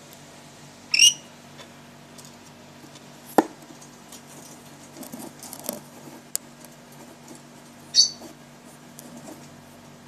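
Pet lory in its wire cage giving two short, shrill calls, about a second in and again near the end. In between come a sharp click and lighter scratching as it moves about the cage, over a steady low hum.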